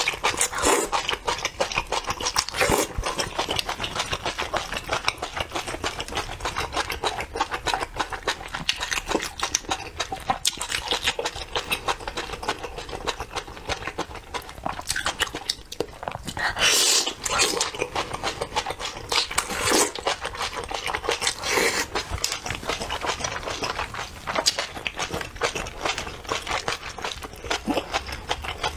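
Close-miked chewing of spicy beef tripe: steady wet, clicking mouth sounds, with a few louder slurps in the second half.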